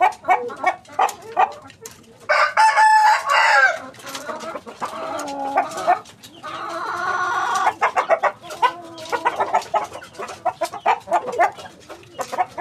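Chickens clucking in many short, quick calls, with a loud rooster crow about two seconds in and a second, quieter long call around the middle.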